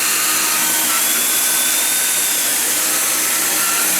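Dyson V8 Absolute cordless stick vacuum running steadily with a high whine and even loudness, with no pulsing or surging. This shows the surging has been cured by clearing shredded paper that was jammed in the intake nozzle.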